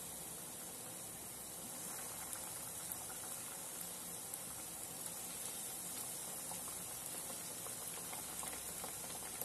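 Flour-coated chicken pieces deep-frying in hot oil in a kadhai: a steady sizzle with faint crackling.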